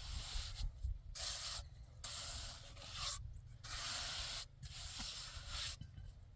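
Repeated hand strokes rubbing across a hard surface, like sanding or scraping a wall, each stroke lasting about half a second to a second with short pauses between.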